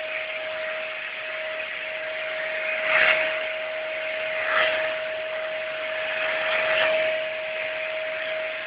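Vacuum cleaner running with its brush head: a steady motor whine under a rush of air that surges louder three times as the brush is worked over the heater's filter grilles.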